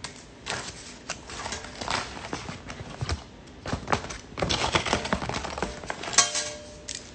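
Irregular rustling, scratching and tapping from hands handling something close to the phone's microphone, busiest about four to six seconds in, with a short harsh scrape just after six seconds.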